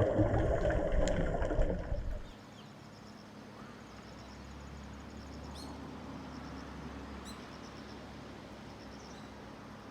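Underwater: a scuba diver's exhaled bubbles rushing out of the regulator, stopping suddenly about two seconds in. After that a faint low hum remains, with a few sharp clicks.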